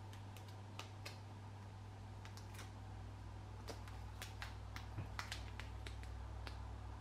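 Faint scattered clicks and crackles of a strip of duct tape being handled, lifted and laid flat on a table, growing busier about four to five seconds in, over a steady low hum.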